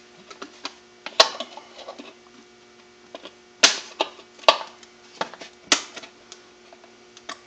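Thin plastic soda bottle crackling and clicking as it is handled with a wrench inside its neck: irregular sharp clicks, the loudest about a second in and several between three and a half and six seconds, over a steady low electrical hum.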